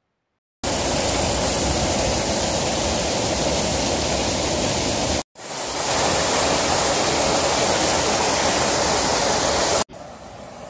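Waterfall pouring over a rock ledge, heard close up as a loud, steady rush. It starts about half a second in, cuts out briefly about five seconds in and comes back, then drops to a much quieter river rush near the end.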